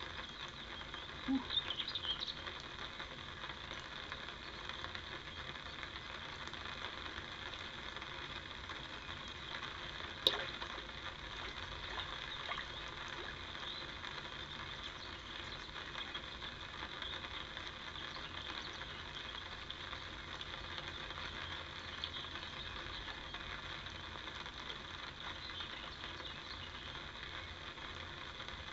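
Steady outdoor background hiss with no clear source, broken once by a single sharp click about ten seconds in.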